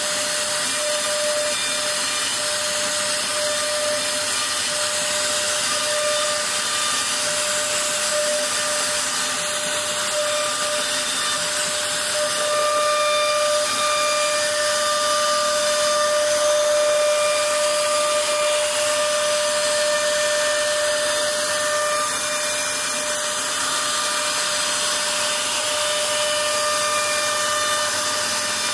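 CNC router spindle whining steadily while its bit carves a relief design into a wooden panel, with a hiss from the cut. It gets a little louder around the middle.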